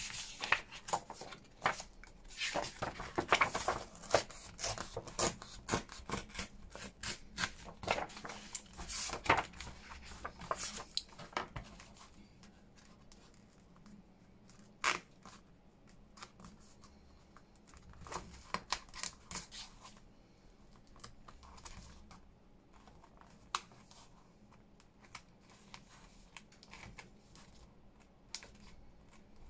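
Paper book pages rustling and tearing as they are pulled free of the binding, with small scissors snipping at the threads in the spine. The rustling and tearing are busy for the first dozen seconds, then thin out to scattered snips and clicks.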